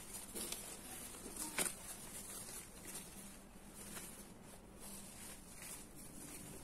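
Faint rustling of lightweight curtain fabric being handled and unfolded, with a few soft clicks, the sharpest about one and a half seconds in.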